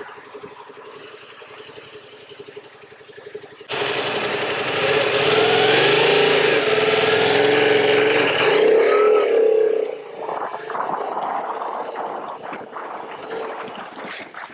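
Yamaha MT-07's 689 cc parallel-twin engine running low and steady, then revving up loudly as the motorcycle pulls away about four seconds in, rising and falling in pitch. It eases back to a lower, steadier note around ten seconds in.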